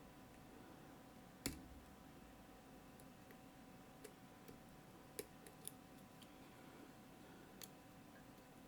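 Faint, scattered clicks of a lock pick working the pins of a Mottura CP6 dimple lock, with the sharpest click about a second and a half in and a few lighter ones after it.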